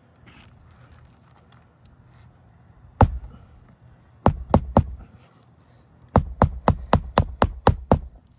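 Hammer driving roofing nails through an asphalt shingle: a single strike, then a quick run of four, then a run of about eight at roughly four blows a second.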